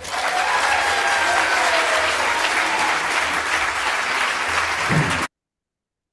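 Live audience applauding after a song, with a few faint calls in the clapping; it cuts off suddenly to silence about five seconds in.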